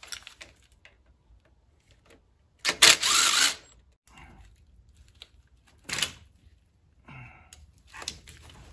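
Plastic sensor connectors on the engine wiring harness being unclipped and pulled off: scattered clicks and rattles, the loudest a burst lasting about a second roughly three seconds in, and another sharp click about six seconds in.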